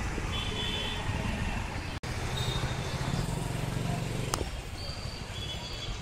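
Busy street traffic: cars and motor scooters passing, with a steady engine rumble that swells in the middle, and several short high-pitched tones over it. The sound drops out for an instant about two seconds in.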